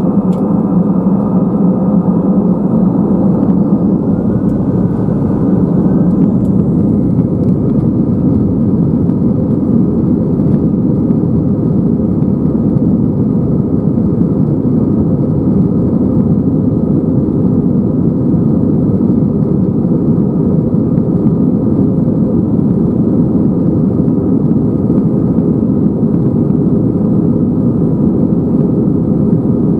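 Airbus A320's CFM56 turbofan engines heard from inside the cabin, spooling up to takeoff thrust with a rising whine over the first few seconds. They then run loud and steady as the jet accelerates down the runway on its takeoff roll.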